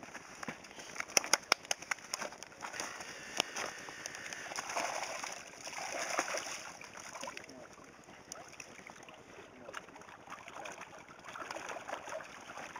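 Fish splashing and thrashing as they are tipped from a net back into lake water, in two bouts of splashing, the second near the end. A few sharp knocks about a second in are the loudest sounds.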